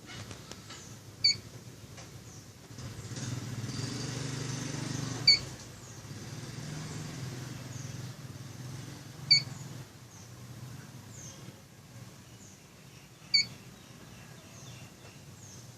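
Short, high electronic warning beep repeating about every four seconds, the annoying alert of a device running in brown-out mode during a power interruption. A low engine rumble swells and fades a few seconds in, as a vehicle passes.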